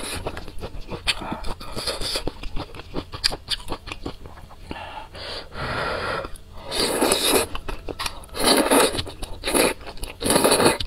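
Close-miked eating: quick wet chewing clicks for the first half, then a series of slurps as wide glass noodles in spicy broth are sucked in, about five in the second half.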